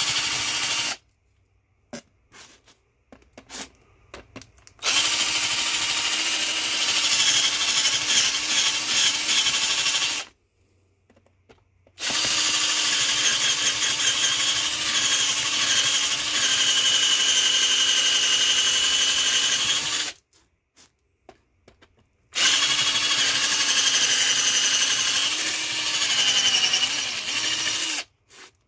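Power drill running at a steady speed in long runs of several seconds, stopping and starting again three times, with short pauses between the runs.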